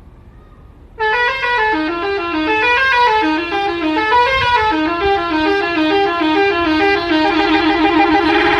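Telolet musical air horn on a Pandawa 87 bus, starting about a second in and playing a quick stepping melody in Pakistani style, then holding a note near the end.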